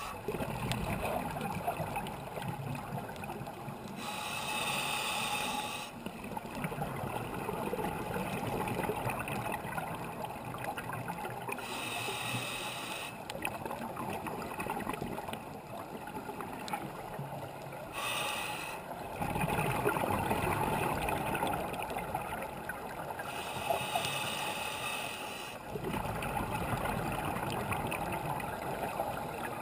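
Scuba regulator breathing underwater: a short hiss on each inhale, then a longer rumble of exhaled bubbles, repeating about every six seconds, four breaths in all.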